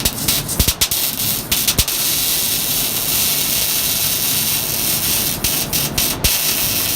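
MIG welding arc crackling as a bead is run, with irregular sharp pops for the first couple of seconds and then a steady, even hiss.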